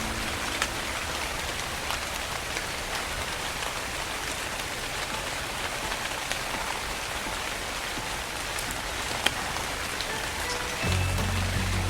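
Steady rain falling on a surface, an even hiss with scattered single drops ticking through it. Low sustained music notes come in near the end.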